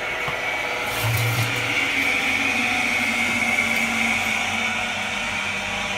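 Electric milk pump running steadily with a high whine, sucking milk out of a steel milk can through a hose.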